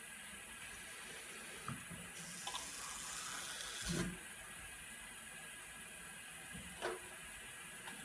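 Water running from a lab hose into a glass filter crucible for about two seconds, ending with a low knock. A sharp click follows a few seconds later.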